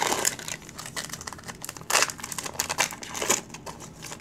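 Foil wrapper of a Pokémon Fates Collide booster pack crinkling and tearing as it is ripped open and the cards are pulled out, a run of crackles with louder bursts about two seconds in and again a little after three seconds.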